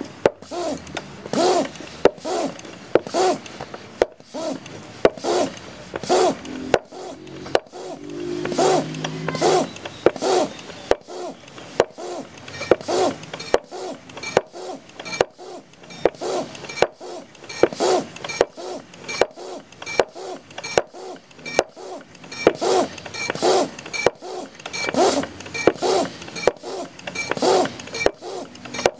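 PCP high-pressure hand pump worked in steady strokes, a little more than one a second, each stroke a rush of air and rubbing. The pump is charging a cylinder through a car-tyre valve, the pressure climbing toward 1500 psi. In the second half each stroke also gives a faint short squeak.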